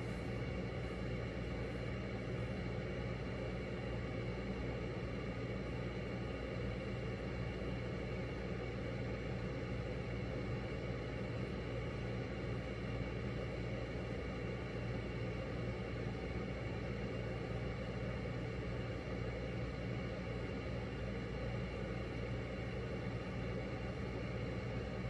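Steady low hum with a hiss over it, unchanging throughout: constant background noise.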